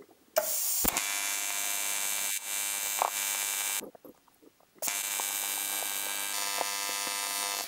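AC TIG welding arc on aluminum from an Arccaptain TIG200P set to 100 Hz AC, giving a steady electric buzz. It runs for about three seconds, stops for about a second, then strikes again for about three more seconds.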